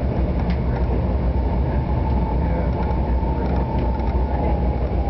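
Cabin noise inside a moving Stadler DMU diesel light-rail car: a steady low rumble from the running train, with a faint steady whine above it.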